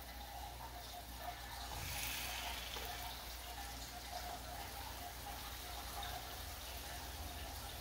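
Hot oil sizzling and bubbling steadily around glutinous-rice-flour dough rings deep-frying in a pan. The sizzle swells briefly about two seconds in.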